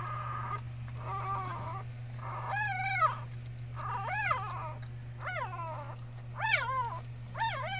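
Newborn puppy crying in short, high squeals that rise and fall in pitch, about seven of them, coming closer together near the end, over a steady low hum.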